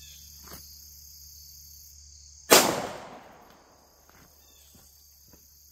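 A single 9mm pistol shot from a Glock 19X about two and a half seconds in, its report echoing away over about a second.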